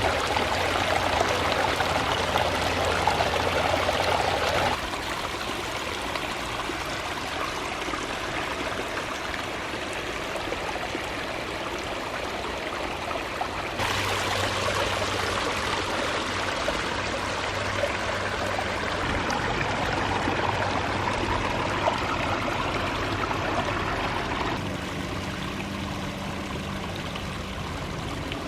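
Water running and splashing down a small pondless backyard waterfall, a steady rush that changes abruptly in loudness and tone three times as the listening position shifts.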